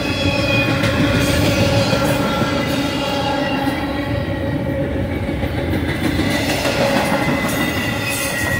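Loaded double-stack intermodal well cars rolling past on a freight train: a loud, steady rumble of steel wheels on rail, with several high, held squealing tones from the wheels over it.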